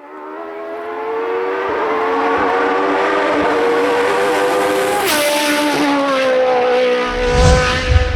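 Hill-climb race car engine running at high revs, rising in over the first second or so, with a sharp crack about five seconds in as the note steps down at a gear change, and a low rumble near the end.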